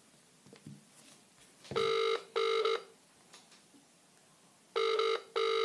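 Telephone ringback tone of an outgoing call waiting to be answered: the British-style double ring, "ring-ring", heard twice, about three seconds apart.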